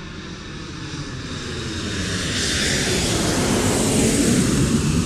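A jet flying past: a rushing sound that builds up to a peak about three to four seconds in, its pitch falling as it goes by.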